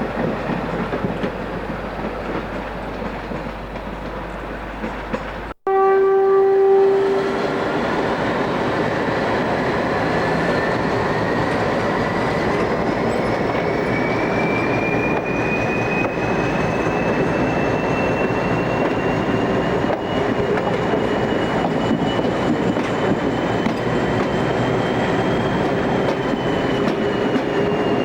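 Train running on the rails with a steady rumble. After a sudden cut about five and a half seconds in, a short horn blast sounds, then the train gathers speed, its whine rising slowly in pitch and dipping a little near the end.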